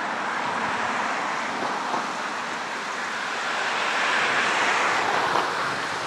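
Outdoor street ambience: a steady hiss of wind and passing road traffic, swelling about four seconds in.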